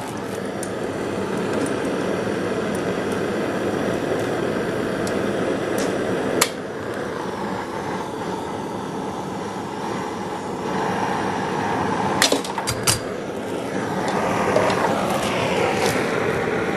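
Lit oxyacetylene torch flame hissing steadily while it heats a steel throttle linkage rod. There is a sharp metal clink about six seconds in, and a few more clinks around twelve seconds.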